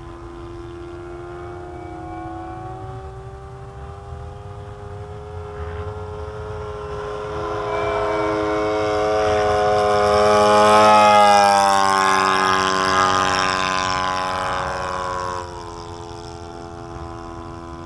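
Four-stroke glow engine (Thunder Tiger 91FS) of a model P-51 Mustang droning in flight. It grows louder to a peak about 11 seconds in as the plane passes, its pitch rising a little and then falling, and drops off sharply about 15 seconds in. The pilot finds it still not putting out full power and wants it leaner.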